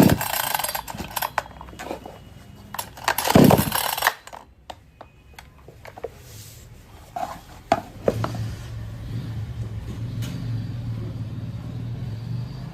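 Yantra 58 cc two-stroke chainsaw being pull-started: two hard yanks of the recoil starter cord, then from about eight seconds a steady low hum as the engine runs.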